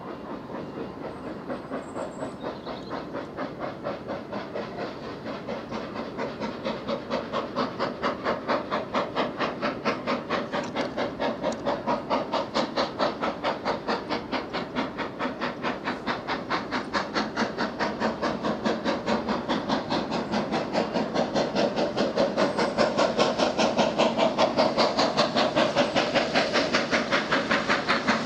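Steam locomotive working hard under power as it hauls a passenger train, its chimney exhaust beating in a quick, even rhythm with a hiss of steam. It grows steadily louder as it approaches.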